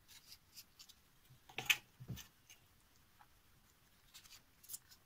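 Faint, irregular scratchy rubbing and handling as an epoxy resin ring is worked by hand on fine 1500-grit sandpaper, with one louder rustle about one and a half seconds in.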